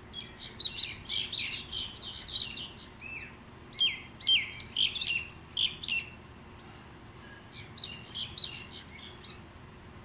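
A flock of common mynas calling: quick chattering and whistled notes in three bouts, the loudest in the middle, some notes sliding sharply down in pitch.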